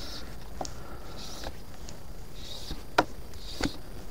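Fly line being stripped in by hand on the retrieve: a soft swish of line through the fingers and rod guides about once a second, with a few sharp clicks of line and tackle handling, the loudest about three seconds in.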